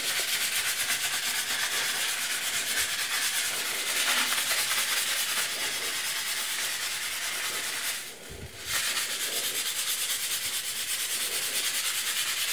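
Continuous fast scrubbing of wet, soapy ceramic floor tiles and grout by hand, working at stains, with a short pause a little past the eight-second mark.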